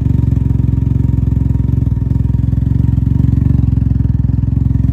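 Can-Am Ryker's engine idling steadily, a loud even run of fast low pulses.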